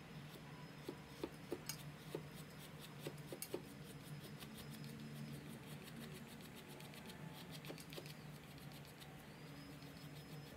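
Faint scraping and small clicks of a blade cutting down the tip of a leather-hard stoneware teapot spout, the clicks clustered in the first few seconds, over a low steady hum.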